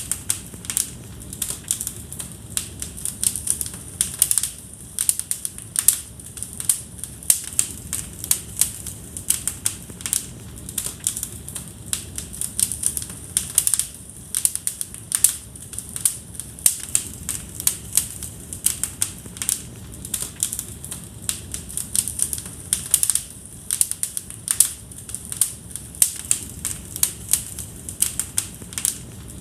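Fire in a fireplace crackling, with many irregular sharp pops and snaps over a soft, steady low rush of the flames.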